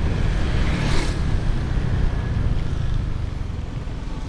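Motorcycle riding on a wet road, heard from a helmet-mounted microphone: steady wind rumble over the engine and tyre hiss, with a brief louder hiss about a second in and the noise easing a little near the end.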